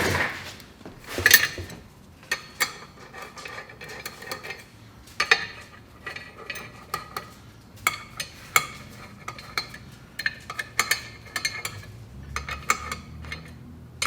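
Metal clutch parts and hand tools being handled, a string of short, irregular clinks and taps.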